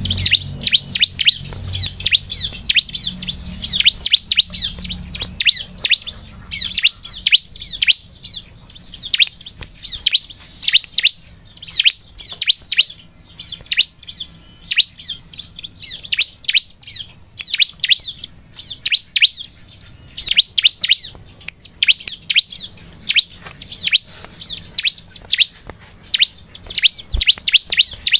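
Bar-winged prinia (ciblek) singing: rapid runs of sharp, high chirps, several per second, coming in bursts with short pauses between them.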